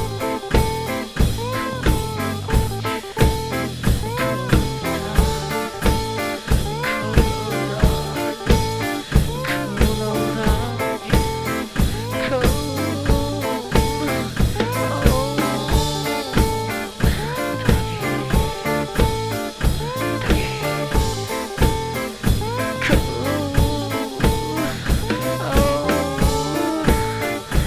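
Instrumental band music in a blues style: a drum kit keeps a steady beat under a lead melody with bending notes.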